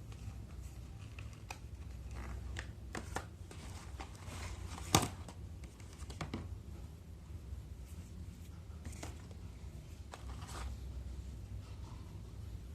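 Phone packaging being handled: scattered rustles, crinkles and small clicks of cardboard and plastic, with one sharper click about five seconds in, over a low steady hum.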